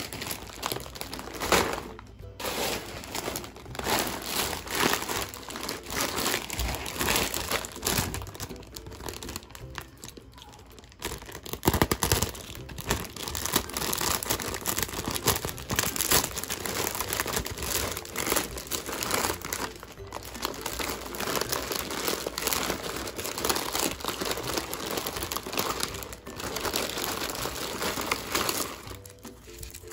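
Plastic packaging bag crinkling and rustling on and off as hands handle and open it.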